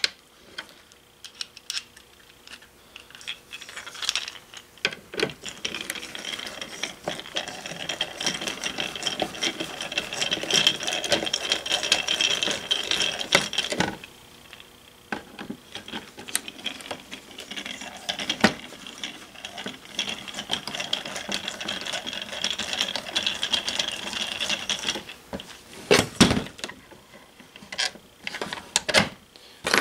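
A screwdriver backs two small Phillips screws out of the bottom of a Viking RG-10A ring amplifier's case. There is a long stretch of steady mechanical turning sound for each screw, then a few sharp knocks near the end as parts are handled.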